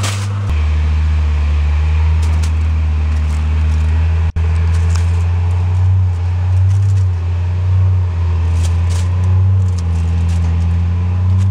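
A loud, steady low rumble, with faint crinkling and rustling of aluminium foil as raw chicken pieces are handled and laid on a gas grill's grate. The sound drops out for an instant about four seconds in.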